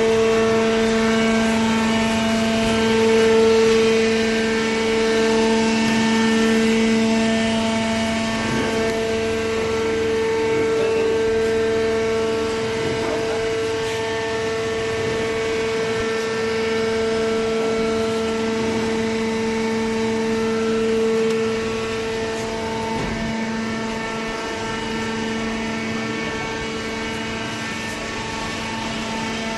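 A hydraulic baler running with a steady humming drone that holds one pitch, its level easing slightly after about twenty seconds.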